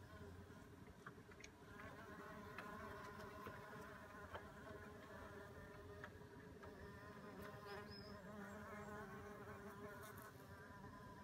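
Faint buzzing of mason bees in flight around their nesting block: several wavering wing hums overlapping, rising and falling in pitch as the bees come and go. A brief high chirp about eight seconds in.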